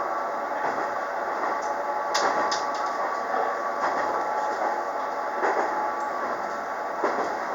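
KiHa 47 diesel railcar heard from inside the car while running: a steady rumble of engine and wheels on rail with a faint steady hum, broken by a few sharp clicks.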